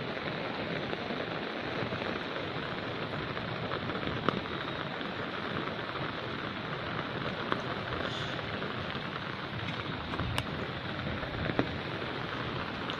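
Steady rain falling on open water, a constant even hiss, with a few sharper single drop taps now and then, mostly in the second half.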